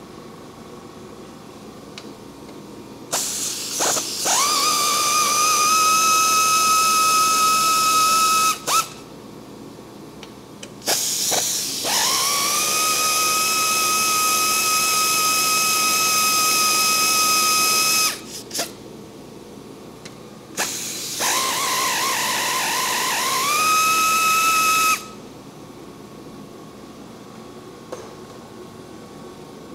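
Power tool run three times, probably backing out bolts or screws. Each run starts with a quick rising whine that settles into a steady high whine over a hiss; the middle run is the longest, about seven seconds.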